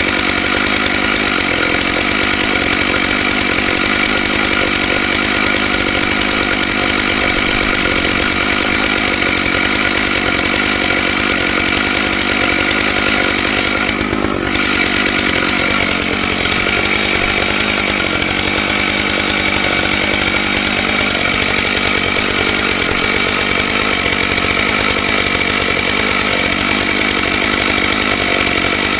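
Stihl MS661 two-stroke chainsaw on a chainsaw mill, running at steady high throttle while ripping a pine log lengthwise with a ripping chain, with a brief dip in the note near the middle.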